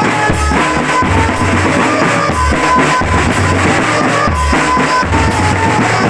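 A drum band playing: bass drums and snare drums beating under a melody of short, high held notes.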